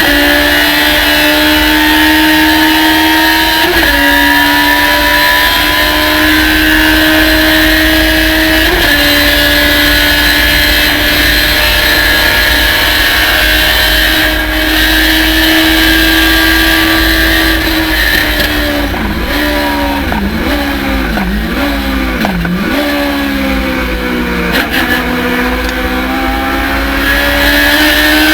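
Thunder Roadster race car engine at full throttle, its pitch climbing through the gears with upshifts about 4 and 9 seconds in. It holds high revs for a long stretch, then drops through several quick downshifts, each with a blip of revs, and pulls hard again near the end.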